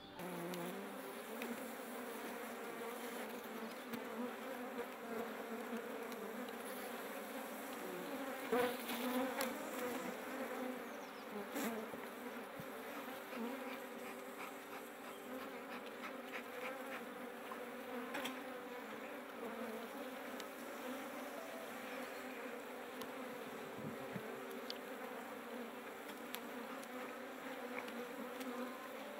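Honeybees (Apis mellifera) buzzing in a steady, many-toned hum around an opened, smoked hive, with a few brief knocks.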